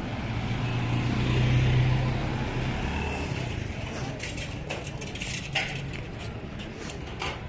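Street traffic: a motor vehicle's engine passes close, loudest about one to two seconds in and then fading, followed by scattered sharp clicks and knocks.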